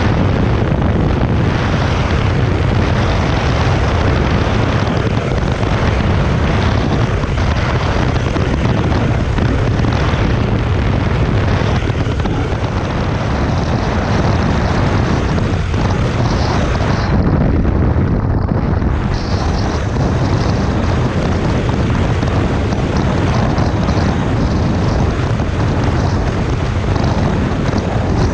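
Heavy wind noise on the microphone of a KTM 390 Adventure at highway speed, over the steady drone of its single-cylinder engine, which is held under 6,500 rpm while the bike is new and running in.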